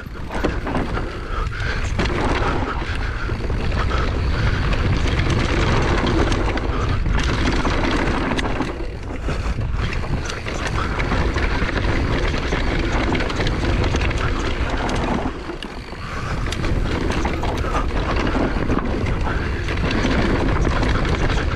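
Wind buffeting a GoPro's microphone over the rumble and rattle of an enduro mountain bike running fast down a bumpy dirt trail. It eases off briefly about fifteen seconds in.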